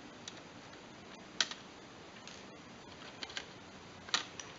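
Plastic display bezel of a Toshiba R830 laptop being pried off by hand, its clips letting go with a few sharp clicks and snaps, the loudest about a second and a half in and again just after four seconds.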